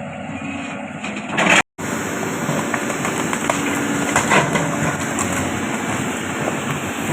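Diesel engine of a Caterpillar 320D L long-arm excavator running steadily while clearing trees, with scattered clanks and cracks. The sound cuts out for a moment about a second and a half in.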